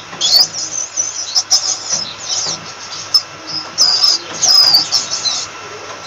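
Rat squeaking: a rapid, irregular run of short, high-pitched squeaks and chirps, many sliding up or down in pitch, with a few sharp clicks among them.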